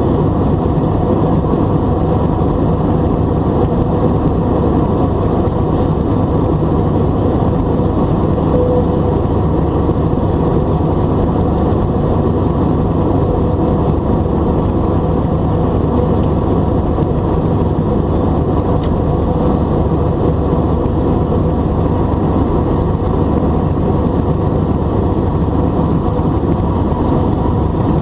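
Steady cabin noise of an Airbus A320 in the climb, heard from a window seat by the wing: its CFM56 turbofans at climb thrust and the rush of air over the fuselage, a low even noise with faint steady hums over it.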